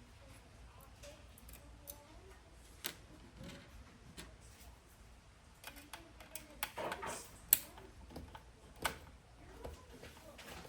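Small screws being backed out of a car radio unit with a screwdriver: scattered small clicks and taps of metal and plastic, the sharpest about three-quarters of the way through.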